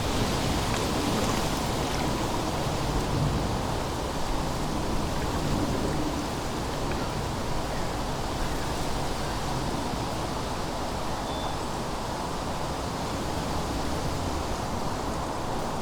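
Autumn wind blowing steadily, a little stronger in the first half.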